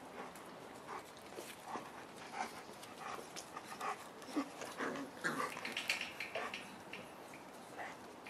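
Five-week-old Boerboel puppies play-wrestling, giving a string of short yips, busiest and loudest about halfway through.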